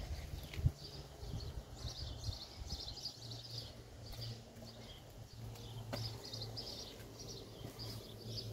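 Small birds chirping again and again over a low, steady hum, with a couple of faint clicks.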